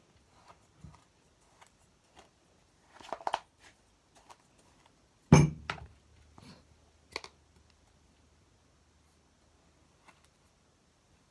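Kinetic sand being worked with plastic tools: scattered light taps and clicks, a short cluster about three seconds in and one loud thump about five seconds in, then mostly quiet.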